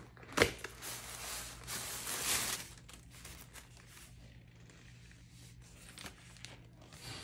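Unboxing packaging handled by hand: a sharp snap about half a second in, then about two seconds of rustling and scraping as a plastic-wrapped paper sleeve is worked off. After that, quieter scattered rustles of the item being turned over.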